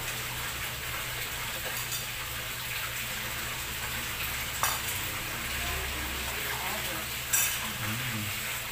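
Spoons and forks clinking and scraping on plates as cake is eaten, with two sharper clicks about four and a half and seven and a half seconds in, over a steady hiss.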